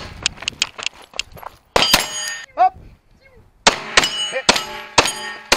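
Pistol shots fired in quick strings, each followed by steel plate targets ringing. There is a burst of several shots in the first two seconds, a pause of under two seconds, then five more shots about half a second apart.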